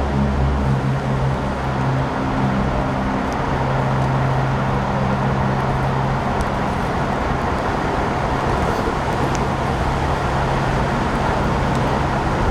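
Vehicle engines idling at an emergency scene: a steady low engine hum under a constant roar of noise.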